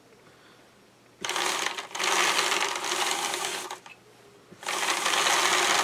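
Hand-cranked drum carder turning, its toothed carding drums and crank gearing whirring as wool is carded into a bottom layer on the big drum. It is turned in two runs: one starting about a second in and lasting about two and a half seconds, then, after a short pause, a second run near the end.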